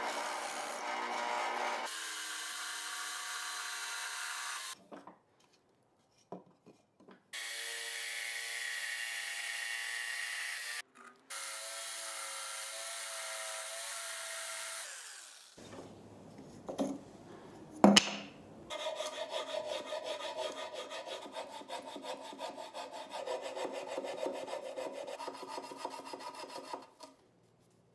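A power drill boring holes in plywood with a wood bit, running in three bursts of a few seconds each with steady motor pitch. After some clicks and a sharp knock, a jigsaw cuts through the plywood with a fast, even buzz for about eight seconds, stopping near the end.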